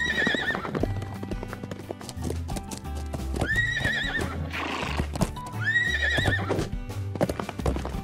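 Cartoon horse sound effects: three whinnies, each rising and then wavering, about three seconds and two seconds apart, with hooves clip-clopping, over background music.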